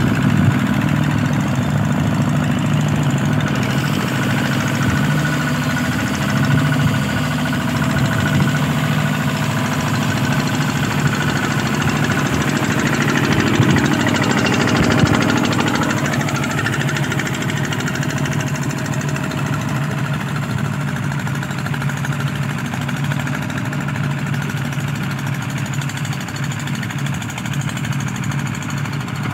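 Kubota two-wheel walking tractor's single-cylinder diesel engine running steadily under load while pulling a disc plough through the soil. It grows louder for a few seconds about halfway through.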